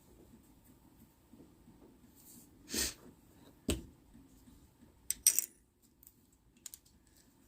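Small hard objects being handled: a short scrape about three seconds in, a knock, then a quick cluster of sharp clicks, the loudest sound, a little past five seconds, and a couple of faint ticks near the end.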